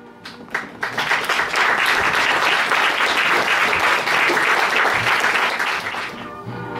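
Theatre audience applauding, starting about a second in and fading near the end as music comes in.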